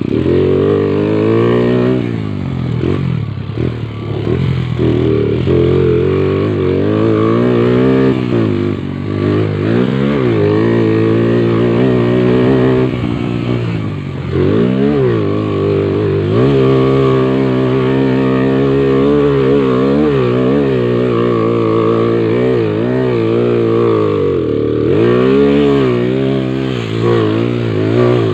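A motorcycle engine running, its revs repeatedly rising and falling, with a few deeper drops in revs about three, thirteen and twenty-five seconds in.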